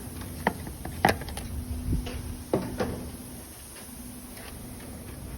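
A handful of sharp knocks and clicks, most of them in the first three seconds, over a faint steady hum.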